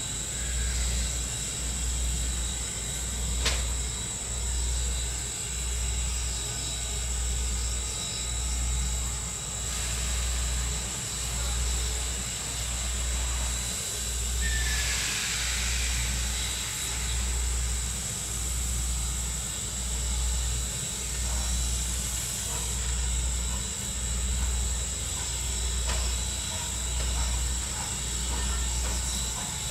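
Norfolk & Western No. 475, a 4-8-0 steam locomotive, working with a steady hiss and a low rhythmic thump about every second and a quarter. A louder burst of steam hiss comes about halfway through.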